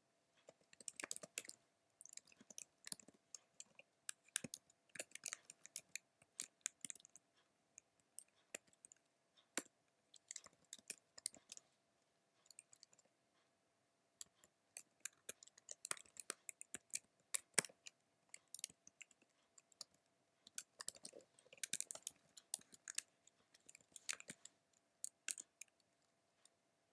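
Typing on a computer keyboard: quick runs of key clicks broken by short pauses, as commands are entered into a terminal.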